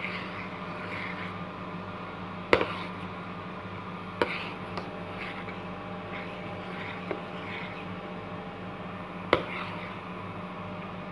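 A spoon stirring a thick carrot ice-cream mixture in a bowl, with several sharp clinks of the spoon against the bowl, the loudest about two and a half seconds in and near the end. A steady low hum runs underneath.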